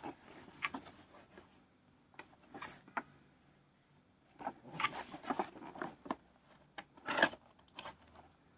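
Toy packaging being handled and opened: irregular rustling, scraping and clicking of cardboard and plastic, loudest about seven seconds in.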